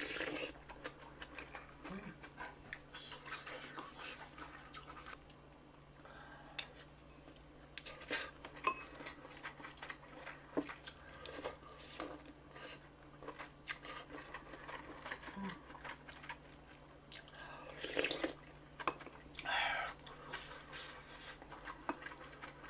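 Quiet eating sounds: chewing on gopchang (beef intestine) hot pot, with occasional clicks of cutlery against dishes and a louder cluster of sounds near the end.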